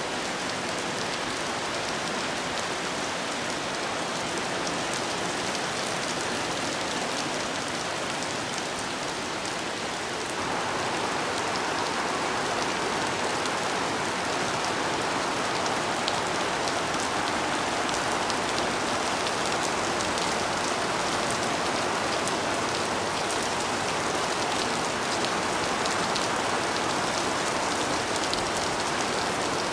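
Steady rain falling and pattering on surfaces, with scattered individual drops ticking; it grows slightly louder about ten seconds in.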